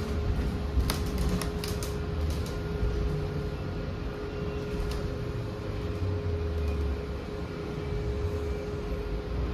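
Inside the cabin of a New Flyer hybrid-electric city bus: a steady low rumble with one constant mid-pitched whine, and a few light clicks.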